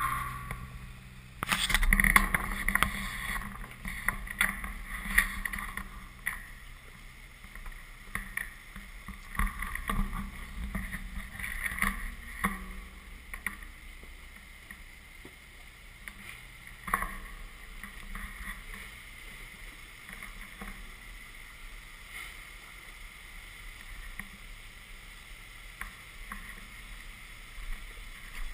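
Jeep Cherokee XJ engine running at low revs as the off-road rig crawls down a rocky ledge, with knocks and scrapes of its tyres on rock now and then.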